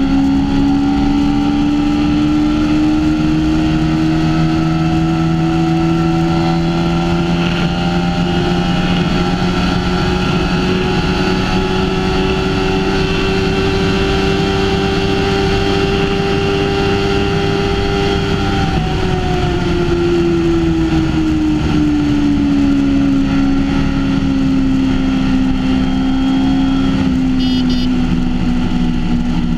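BMW S1000RR's inline-four engine running at high speed with no gear changes, its pitch rising slowly as the bike climbs to about 255 km/h. About 18 seconds in the pitch drops as the bike slows, then levels off. Steady wind rush on the microphone underneath.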